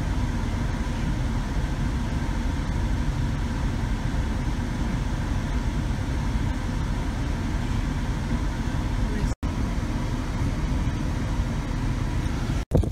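Steady low rumble of car cabin noise, an engine and fan running inside a stopped car, with a few faint steady hum tones over it. The sound cuts out abruptly twice, briefly, near the end.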